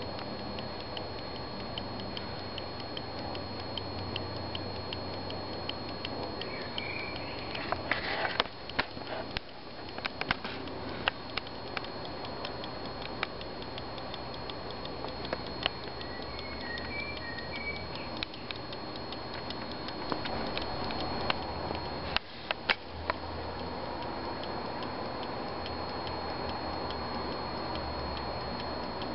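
Ticking of an antique English silver fusee pocket watch movement from 1785-86, a fast, steady beat under a steady hiss. A few louder clicks and knocks come about eight to eleven seconds in and again near twenty-two seconds.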